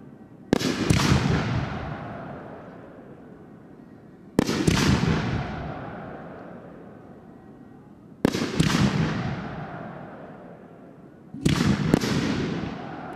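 Aerial firework shells bursting, four booms about four seconds apart, some with a second bang close behind. Each bang is followed by a long echo that dies away over a few seconds.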